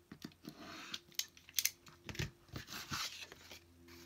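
Snap-off utility knife blade slicing through cardstock along a metal ruler: a run of short, scratchy cuts and clicks, with a dull knock about two seconds in, followed by paper rustling as the trimmed card is handled.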